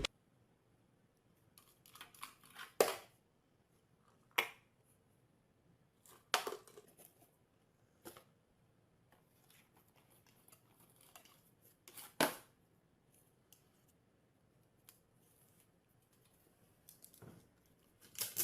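A few short, sharp clicks, one every few seconds, with near silence between them.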